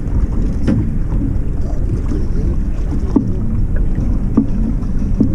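Wind rumbling on the microphone and water noise aboard a small fishing boat on the river, with a few short knocks about a second apart.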